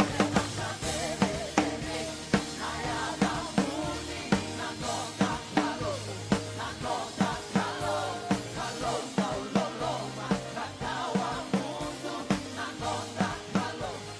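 Live worship band music with a steady drum-kit beat and bass, and a vocal or instrumental melody over it.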